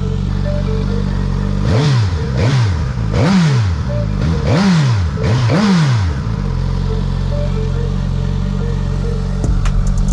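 Suzuki GSX-S1000's inline-four engine idling steadily, then blipped five times between about two and six seconds in, each rev rising and falling quickly before it settles back to idle.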